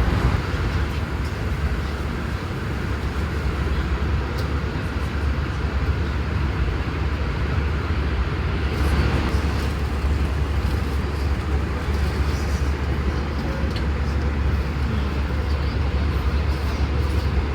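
Steady cabin noise of an Airbus A320 in cruise: a deep, even drone of engine and airflow, with a few faint clicks.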